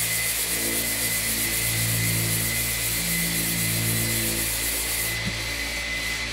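Dry 800-grit sandpaper on a hard hand sanding block rubbed in quick short strokes over a bare carbon-fibre roof panel: a steady scratchy hiss that stops about five seconds in. A steady low hum and a thin high tone run underneath.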